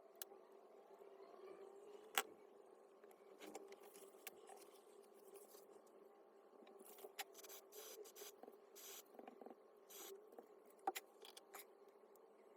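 Faint, scattered clicks and short scrapes of metal and plastic parts and hand tools being handled while an electric demolition hammer is taken apart, over a low steady hum.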